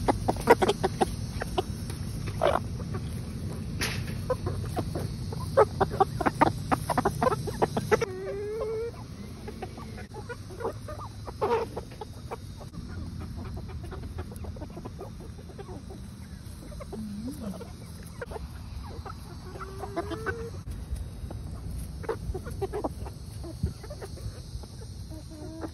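Backyard hens pecking at pieces of banana, making many quick sharp taps of their beaks, densest in the first third. Soft clucking runs throughout, with a few short rising calls.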